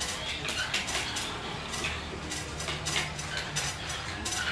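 Xiangqi pieces clicking against one another and on a wooden board: a run of small, sharp, irregular clicks.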